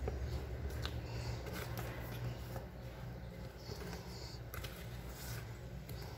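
Silicone spatula stirring thick, sticky dough in a metal pot: faint squishing and scraping with a few soft clicks against the pot, over a low steady hum.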